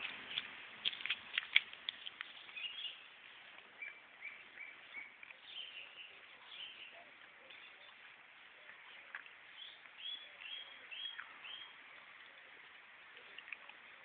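Several sharp clicks in the first couple of seconds, the loudest about a second and a half in. Then a bird chirps in short, high, downward-sliding notes, several runs of three to four notes each.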